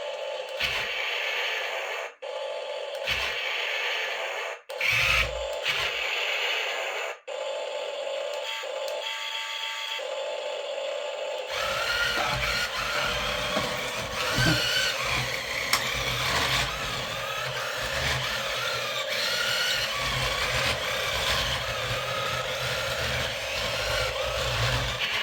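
Toy remote-control battle tank playing its electronic battle sound effects through its small built-in speaker, with mechanical whirring from its motors. The sound cuts out briefly a few times in the first half. About twelve seconds in it turns into a denser, fuller sequence with a low rumble underneath.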